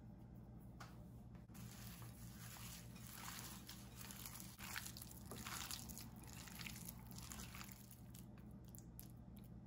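A hand mixing raw chicken pieces with crisp fried onions, oil and spice powders in a glass bowl: faint, uneven wet rustling, busiest in the middle.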